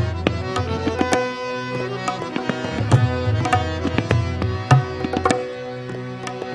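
Tabla and harmonium playing an instrumental interlude of a ghazal: a run of sharp tabla strokes with a booming low drum, over held harmonium notes.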